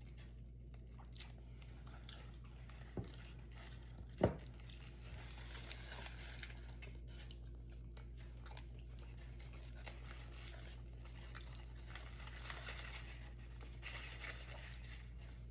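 Close-up chewing and crunching of food, with two short sharp knocks about three and four seconds in, the second louder, over a steady low hum.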